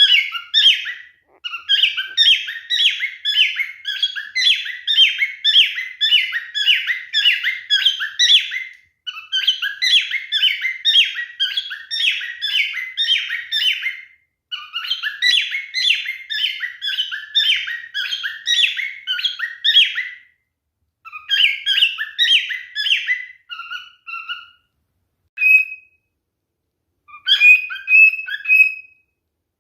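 Male cockatiel singing: long runs of fast repeated chirping notes, about three a second, in phrases broken by short pauses, thinning to a few scattered chirps near the end. This is courtship song.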